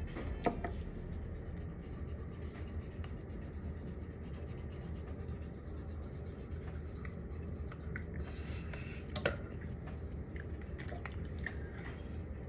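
Foam oral swab scrubbing over teeth and gums, a soft rubbing and scratching, with two sharp clicks, one about half a second in and one about nine seconds in, over a steady low hum.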